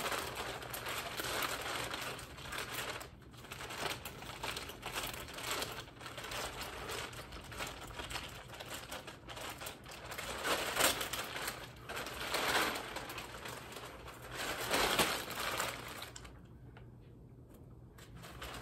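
Clear plastic packaging crinkling and rustling as it is handled and pulled out of a cardboard box. The rustles come in uneven bursts, with some louder ones past the middle, and go quieter about two seconds before the end.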